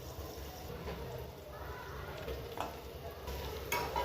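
Faint sizzling of meat cooking in a pan, with a faint voice in the background.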